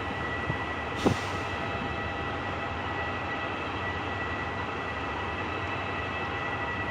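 Diesel train running steadily alongside the platform, with a steady high whine over its hum and a single sharp metallic clank about a second in.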